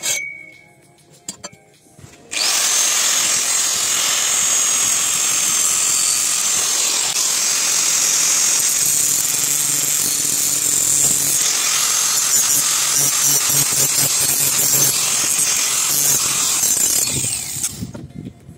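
Angle grinder with an abrasive cutting disc slicing a lengthwise slot in a steel pipe: a steady, high-pitched cutting noise that starts about two seconds in and stops just before the end, after a short clink at the very start.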